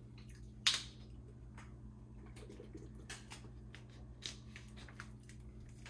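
A person eating: soft chewing and food handling, with a sharp click a little under a second in and a few smaller clicks and rustles later, over a steady low hum.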